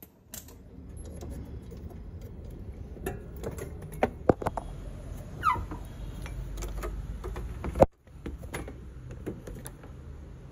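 Metal clinks and knocks from handling an A/C compressor and tools as the compressor is worked loose and lifted out, over a low rumbling handling noise. A short falling squeak comes about halfway through, and a sharp knock comes just before the sound cuts out for an instant.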